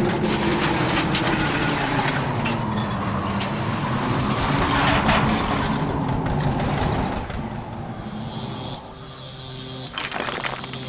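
Sound effect of a tornado bearing down: a roaring wind with a howl that slowly rises and falls in pitch, and sharp cracks of flying debris. It eases off about seven seconds in, then picks up again with more crackling near the end.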